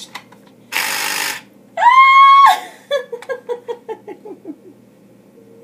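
A short burst of hissing about a second in, then a loud, high, held shriek, followed by a quick run of short laughing notes that fall in pitch.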